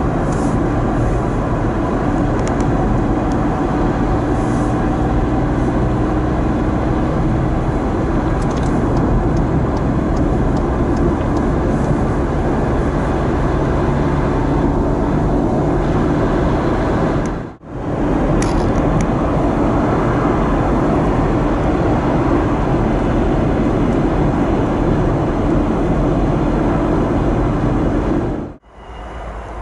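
Steady road noise of a car being driven on a highway, heard from inside the cabin: tyre rumble and engine hum. It drops out briefly twice, about 18 and 29 seconds in.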